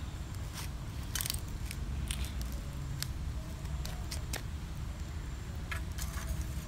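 Sparse, irregular light clicks and clinks of metal tongs and lumps of charcoal being handled in a metal charcoal grill, over a steady low rumble.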